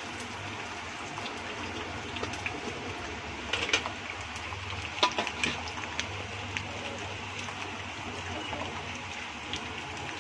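Garlic cloves sizzling as they fry in hot oil in a kadhai: a steady hiss, with a few sharp clicks and pops in the middle, the loudest about five seconds in.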